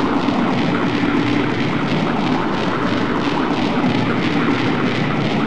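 A harsh, dense wall of distorted noise music, steady in level, with a faint even pulse running through the hiss.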